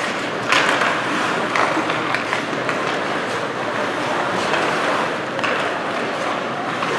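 Youth ice hockey game play: a steady wash of skates scraping on the ice and a murmur of voices, with a few sharp knocks from sticks and puck.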